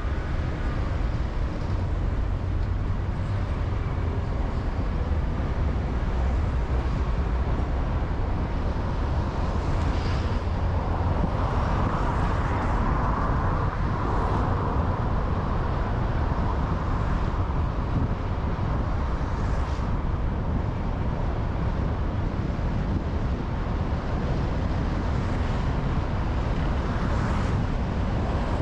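Road noise of a car driving on a motorway: a steady low rumble of tyres and engine with a rushing haze over it, swelling louder for a few seconds about twelve seconds in.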